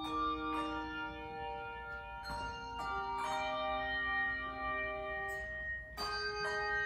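Handbell choir playing: chords of several handbells rung together, each chord struck and left ringing on with long, sustained tones before the next one sounds.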